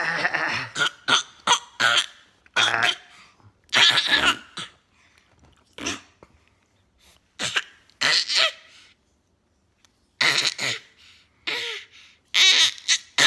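Repeated throat-clearing: a dozen or so short, harsh hacking bursts at irregular intervals, with a longer pause about two-thirds of the way through.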